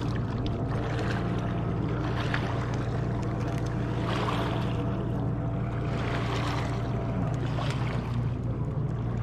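A steady low engine drone whose pitch drifts slowly up and down, with a few swells of rushing noise over it.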